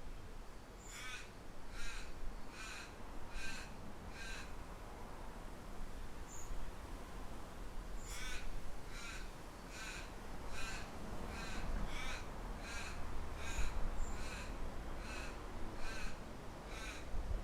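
A bird calling over and over in short, evenly spaced calls, a little more than one a second. There is a pause of a few seconds partway through, then a longer run of calls. A low wind rumble lies underneath.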